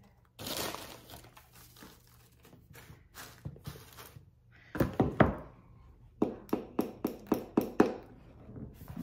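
Hands rustling crinkle-cut paper shred and handling things inside a cardboard gift box: a crinkling rustle at first, a few dull thunks about five seconds in, then a quick run of sharp taps and knocks, about four a second.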